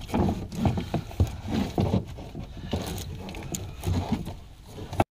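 Cables and a plug being handled against a plastic battery charger and console: irregular rustles, taps and knocks that stop abruptly about five seconds in.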